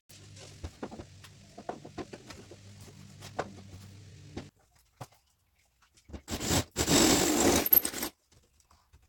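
Power drill with a 5/16-inch bit boring a bolt hole for the headache rack mount: light handling clicks and taps first, then after a short pause the drill runs in a loud burst of about two seconds and stops abruptly.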